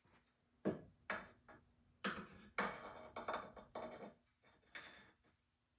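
Motorcycle front-end parts being handled and fitted: a run of about half a dozen short knocks and scrapes with quiet gaps between them.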